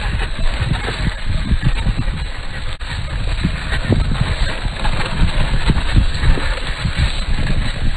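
RC rock crawler driving over sandstone in a slowed-down recording, heard as a loud, irregular low rumble with a rough hiss above it.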